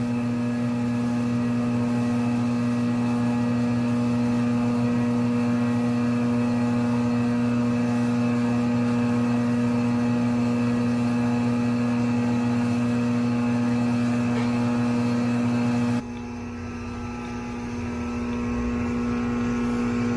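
Crankshaft grinding machine running with a steady, loud motor hum carrying a strong low tone. About sixteen seconds in the sound changes abruptly to a quieter running noise that slowly grows louder.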